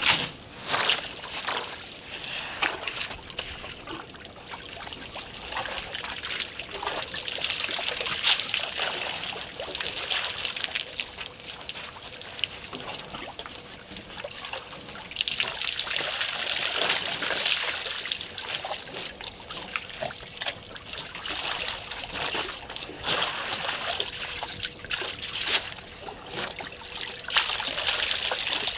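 African elephants drinking at a waterhole: water trickling and splashing as their trunks dip into the water and draw it up, with many small splashes scattered through a steady running-water hiss.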